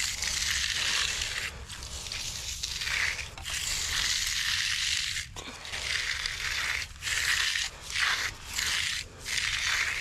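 Steel hand trowel sweeping over the surface of fresh, wet concrete, a scraping hiss in repeated strokes of varying length with short breaks between them. It is the finishing stage of the slab, the trowel smoothing and closing the surface.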